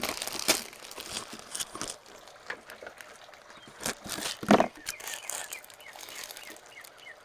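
Plastic sleeve around a bunch of cut roses crinkling and rustling as it is handled, with one loud scissor snip through the plastic about four and a half seconds in.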